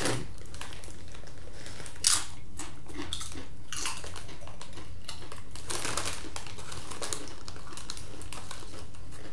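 Irregular crinkling of a foil-lined Doritos chip bag being handled, with the crunch of tortilla chips being bitten and chewed.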